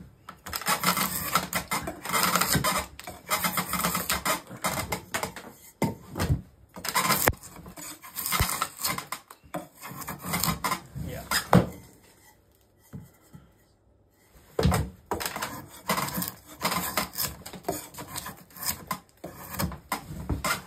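Drawknife shaving a riven spruce stool leg: a run of scraping pull strokes with short gaps between them, pausing for about two seconds past the middle.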